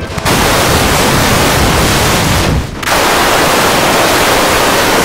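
Loud, harsh static like white noise, filling every pitch evenly; it drops out briefly about two and a half seconds in, then comes back just as loud.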